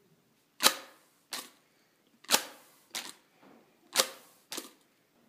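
Three sharp double knocks about a second and a half apart, each a loud hit with a short tail followed by a weaker second hit.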